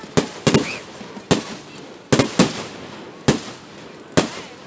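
Fireworks display: a run of sharp firework bangs, about seven in under five seconds, irregularly spaced, each dying away quickly.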